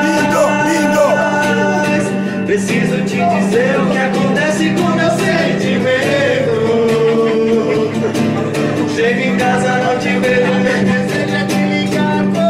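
A man singing to his own strummed classical guitar, the chords struck steadily under a wavering sung melody.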